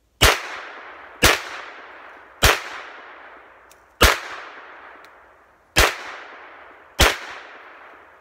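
Six 9 mm shots from a 1908 Luger carbine, fired at an uneven pace over about seven seconds, each with a long echo that fades away.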